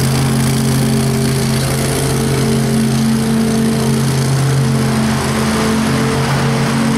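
2010 Scag Tiger Cat zero-turn mower running and mowing, its engine holding a steady, even hum with no changes in pitch.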